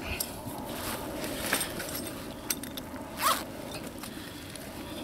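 Zip on a fabric carp weigh sling being pulled in a few short strokes, the longest and loudest about three seconds in, as the fish is closed into the sling to be weighed.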